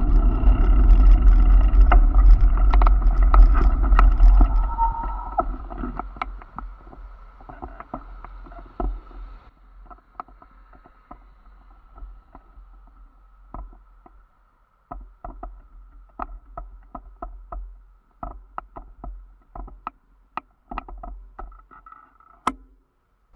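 Low rumble of wind and rolling noise on a bicycle-mounted camera, loud for the first few seconds and fading away over the next two as the bike slows to a stop. After that, scattered irregular clicks and ticks over a faint steady hum.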